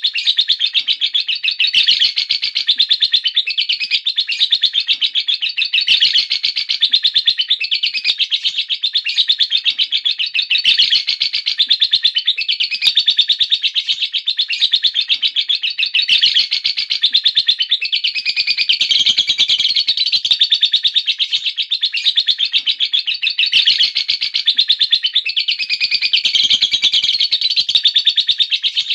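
Lovebird giving a long, unbroken ngekek: a rapid, high-pitched chattering trill that runs on without a pause.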